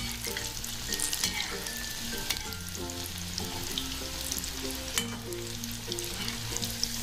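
Bread pakoras deep-frying in hot oil in a metal kadhai: a steady sizzle with scattered crackles and pops. A perforated steel skimmer stirs them in the oil.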